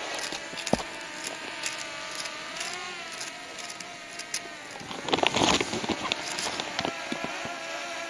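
Drone propellers buzzing steadily in flight, the pitch wavering a little as it manoeuvres. A few clicks and a short rustling burst about five seconds in.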